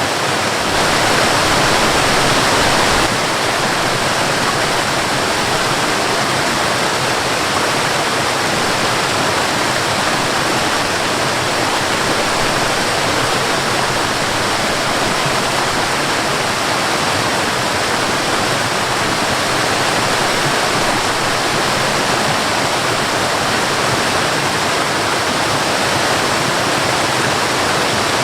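Waterfall water rushing steadily, a little louder for a couple of seconds near the start.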